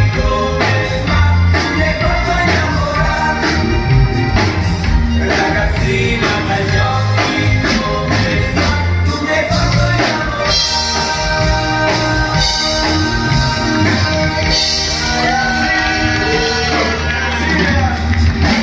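Live band music played loud through a PA: men singing into microphones over electric guitar and a steady beat.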